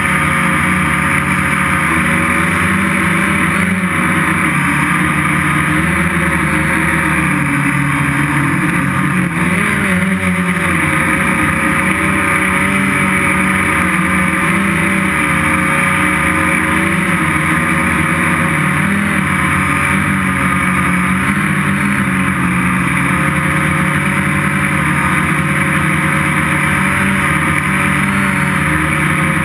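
Gaui 330X quadcopter's electric motors and propellers running steadily in flight, heard from the camera mounted on the craft. The pitch wavers slightly as the motors change speed.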